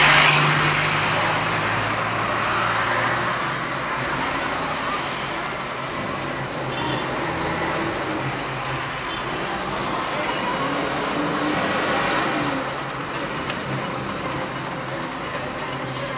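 City street traffic: a steady wash of passing cars, loudest just at the start, with another vehicle swelling past about eleven to twelve seconds in.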